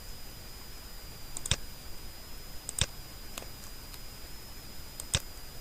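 Computer mouse buttons clicking about four times, some as quick press-and-release pairs, over a faint steady high-pitched whine.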